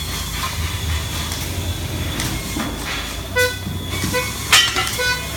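Several short warning toots from a forklift, about four in the last two seconds, the third one the loudest. Under them runs a steady low rumble of factory machinery.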